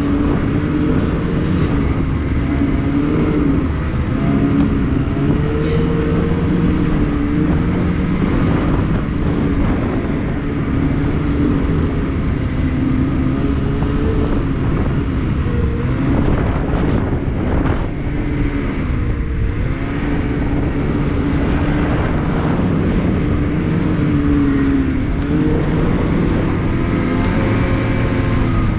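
Snowmobile engine running under way, steady and loud, its pitch rising and falling a little with the throttle.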